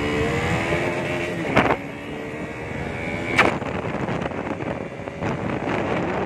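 A single-cylinder KTM Duke 125 motorcycle accelerating, its engine note rising in pitch through the first second and a half. Wind then rushes over the microphone as it rides on, with two loud thumps about one and a half and three and a half seconds in.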